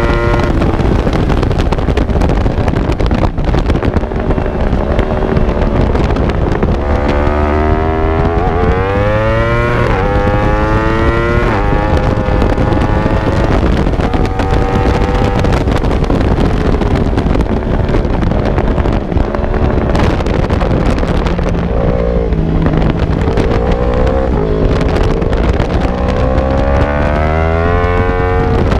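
Race motorcycle engine heard from onboard, revving up through the gears twice with a brief drop in pitch at each upshift, and easing off between the climbs. Wind rushes over the microphone throughout.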